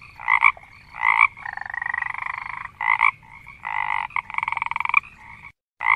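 Frog calling: short croaks about once a second, with two longer, rapidly pulsed trills between them. The calls stop briefly near the end, then resume.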